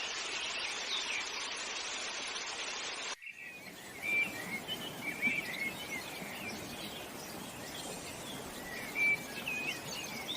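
Birds chirping over a steady outdoor hiss. About three seconds in, the background cuts abruptly to a quieter hiss, and scattered chirps carry on.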